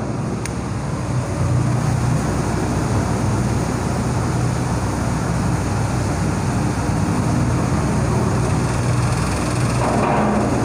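Steady low hum with an even hiss over it: the constant background noise of the room, unchanging throughout.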